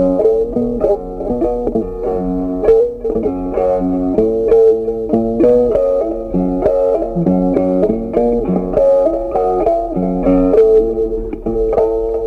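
Background instrumental music: a plucked guitar playing a steady run of notes over a low bass line.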